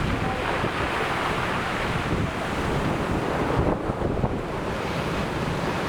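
Sea surf washing continuously onto the shore, with a brief lull in the hiss about four seconds in, and wind rumbling on the microphone.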